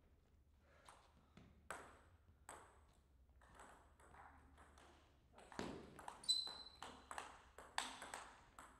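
Table tennis ball clicking: a few scattered bounces in the first few seconds, then from about halfway a rally of quick hits on table and bats. A short high squeak comes about six seconds in.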